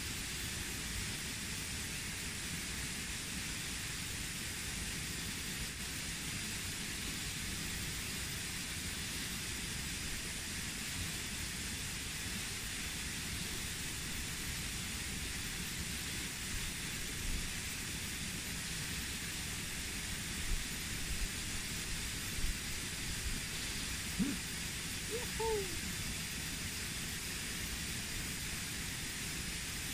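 Steady rushing of a flowing stream, with a few soft knocks and two or three brief chirps in the second half.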